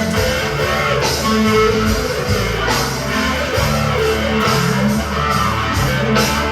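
Electric guitar, a Squier Stratocaster run through a Big Muff fuzz pedal, wah and reverb into a Fender Champion 20W amp, playing an improvised fuzzed rock lead with held, sliding notes.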